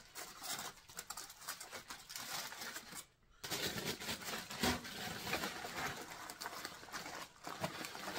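Aluminium foil crinkling and crackling as it is pulled off and bunched up by hand, with a short break about three seconds in.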